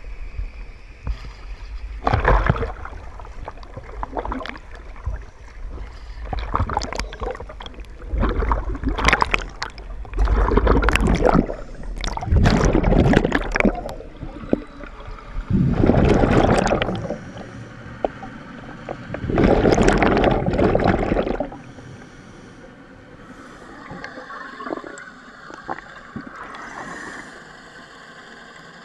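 Scuba exhaust bubbles gurgling underwater in loud bursts of a second or two, every few seconds, as a diver breathes out through a regulator. After about twenty seconds the bursts stop, leaving a quieter steady hiss.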